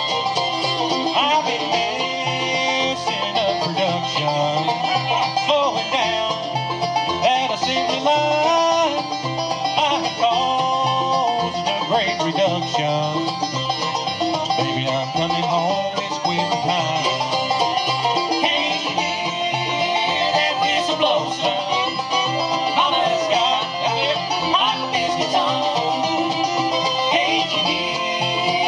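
Bluegrass band playing live, an instrumental passage led by rolling banjo with guitar, over a steady bass pulse of about two beats a second.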